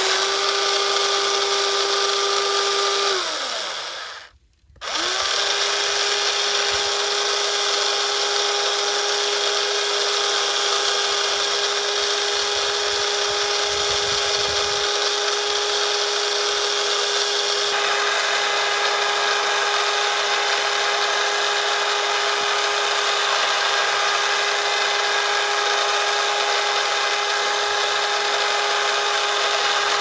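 Small electric motor of a Huina 1/14 RC concrete mixer truck whining steadily as it turns the mixing drum. About three seconds in it winds down in pitch to a stop, then starts again within a second and runs on at the same steady pitch.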